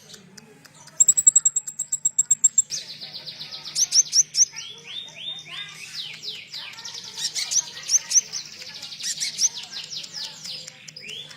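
Konin songbird singing a rapid, high song. It opens with a fast run of thin ticking notes, then breaks about two and a half seconds in into dense trills and quick repeated down-slurred whistles.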